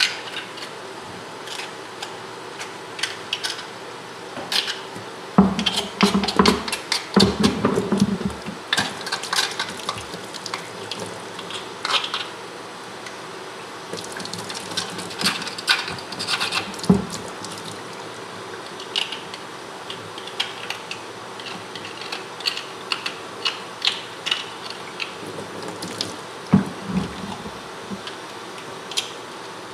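Tap water running steadily into a sink while a hand tool scrapes and clicks against a boiled bear jawbone in bouts of quick strokes, the loudest a few seconds in. The strokes are loosening cooked meat and gristle from the bone.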